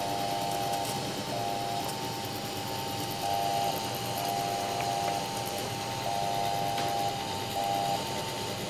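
MakerBot Thing-O-Matic 3D printer running a print: its stepper motors whine at a few close pitches that start and stop every half second to a second as the print head moves. The whine runs over a steady hiss from the extruder's cooling fan.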